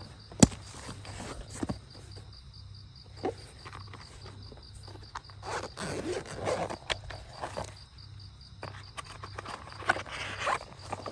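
Handling noises of a person at a campsite: rustling, scraping and zip-like pulls, with a sharp click about half a second in. Crickets chirp steadily in the background.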